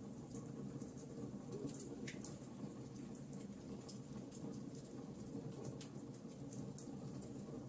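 Fire in a fireplace crackling: irregular sharp pops and snaps over a low, steady rumble.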